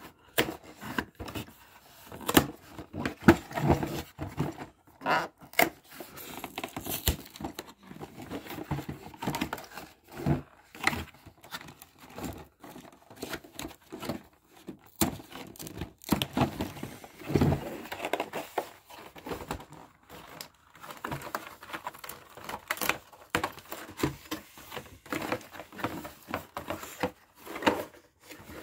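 Cardboard Kinder Joy display case being handled and pried open by hand: irregular rustling, scraping and tearing of the paperboard flaps, with frequent short taps and knocks.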